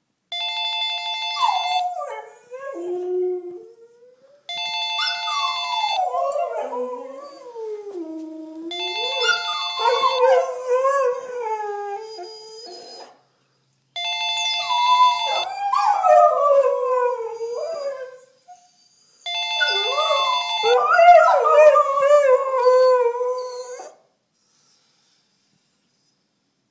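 Two dogs, a husky among them, howling along to a phone ringtone. The ringtone's short melody plays five times, about every four to five seconds, and each time long howls rise and fall in pitch over it and after it.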